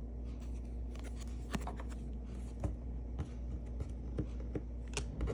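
Basketball trading cards being handled and shuffled from one to the next: soft rustling with a few scattered sharp ticks, over a steady low hum.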